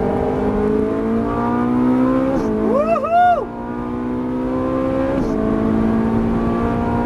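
Ferrari 458 Italia's V8 accelerating hard, heard from inside the cabin, its pitch climbing steadily and dropping with quick upshifts about two and a half and five seconds in. A person's short whooping exclamation rises over the engine about three seconds in.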